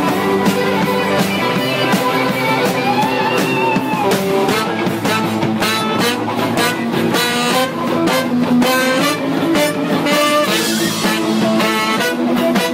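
Live band playing: an electric guitar solo of quick runs over bass and the rest of the band, with trumpet and saxophone coming in near the end.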